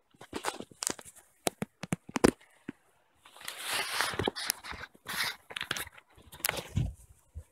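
Footsteps through grass, with rustling and scattered clicks and knocks from a handheld camera being jostled; the rustling is densest from about three to five seconds in.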